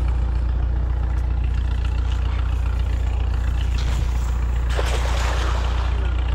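A steady low hum under a cast net being thrown. The net's weighted edge hits the water about five seconds in with a short splashing hiss.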